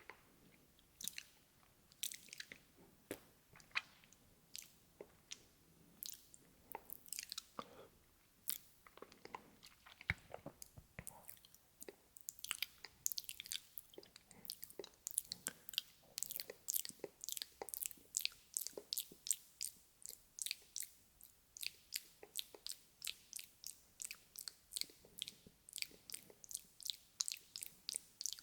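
ASMR mouth sounds close to the microphone: wet, sticky clicks and smacks of lips and tongue, scattered at first and then coming quickly, a few a second, from about twelve seconds in.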